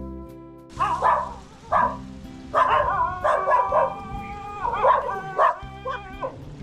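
Dogs barking repeatedly, starting about a second in, with barks coming every half second or so and some drawn out longer.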